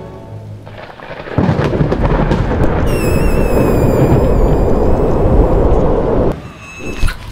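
Loud rushing-wind sound effect of a fall from the sky, starting suddenly about a second and a half in and cutting off abruptly near the end, with a thin wavering high tone over it. A sharp click follows just before the end.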